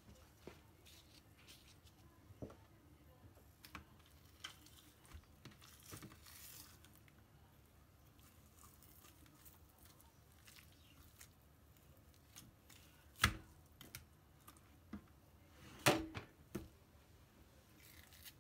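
Raw sea bass fillets being handled in a stainless steel tray and on a plastic cutting board: soft, wet handling and peeling sounds with scattered small clicks, and two sharper knocks a little after halfway and near the end.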